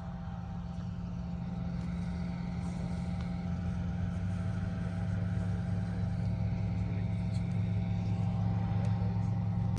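A vehicle engine running steadily: a low, even hum with a few faint steady tones above it, growing slightly louder toward the end.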